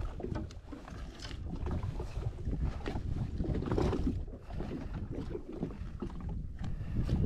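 Wind buffeting the microphone out on the water, an uneven low rumble rising and falling, with scattered knocks and rustles as a caught snapper is handled for measuring.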